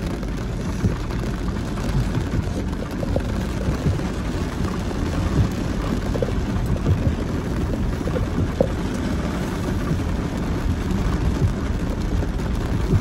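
Rain falling on an SUV's windshield and body, heard from inside the cabin as a steady patter of drops over the low rumble of the vehicle rolling along a wet dirt trail.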